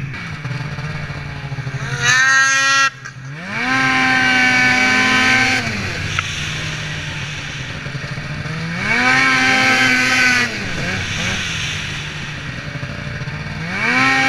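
Snowmobile engine revving in about four throttle bursts. Each time the pitch rises quickly, holds high for a second or two, then falls back to a lower, steady running note. The first short burst cuts off abruptly.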